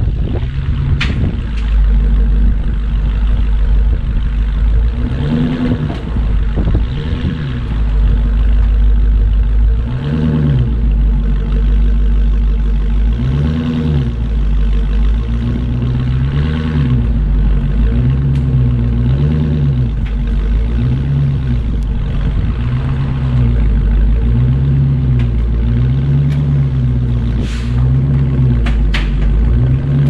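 Car-carrier truck's diesel engine running with a steady low rumble. From about ten seconds in, a rising-and-falling hum repeats about every second and a half.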